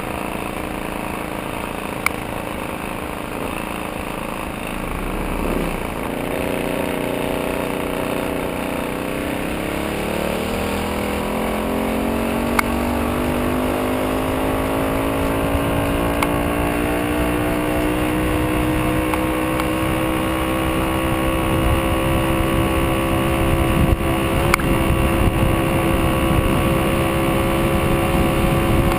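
VeloSoleX moped's small two-stroke engine, which drives the front tyre through a friction roller, running under way. Its note dips about five seconds in, then rises smoothly for about ten seconds as the moped picks up speed, and holds steady. Wind and road noise run underneath.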